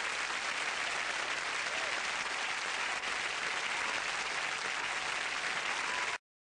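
Studio audience applauding steadily, then cutting off suddenly near the end.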